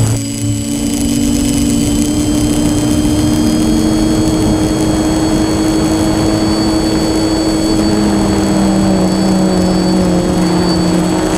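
Multirotor camera drone's propellers and motors whirring steadily, a low hum under a thin high whine, the hum sagging a little in pitch partway through as the motors change speed.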